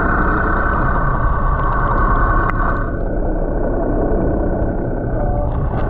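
Steady underwater rumble and hiss picked up through an underwater camera, with a faint steady hum. A single sharp click comes about two and a half seconds in, and the higher hiss drops away about three seconds in.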